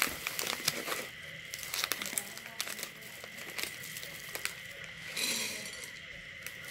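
Plastic Milo snack packet crinkling as gloved hands cut it open with scissors: irregular sharp snips and crackles, with a brief louder rustle about five seconds in.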